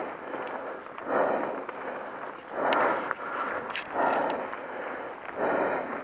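A mountain biker breathing hard while climbing, a heavy breath about every second and a half, with a few light clicks from the bike and trail.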